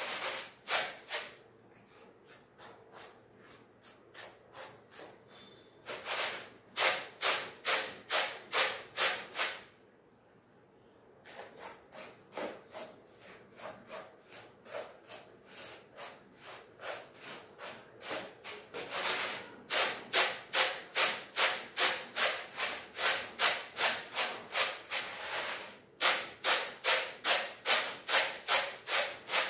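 Split moong dal being winnowed in a woven muram (winnowing tray): rhythmic swishing strokes of the grain tossed and shaken against the tray, about four a second, in runs of softer and louder strokes broken by short pauses. The tossing works the loose husks free of the split lentils.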